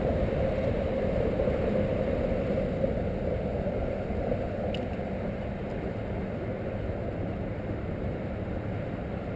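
Steady low rumble of an engine running, growing slightly quieter toward the end, with a faint click about five seconds in.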